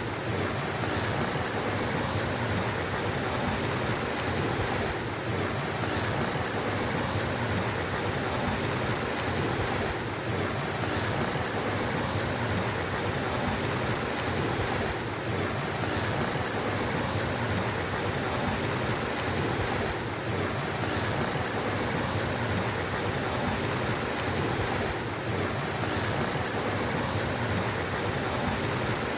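Flowing water rushing steadily in a mountain stream, with a slight dip in level about every five seconds.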